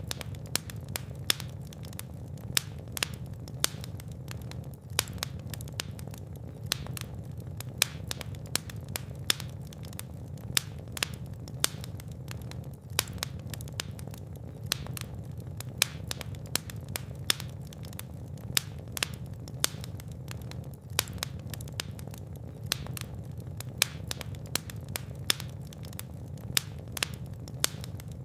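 Fireplace fire crackling: frequent irregular sharp pops and snaps over a steady low rumble of the flames.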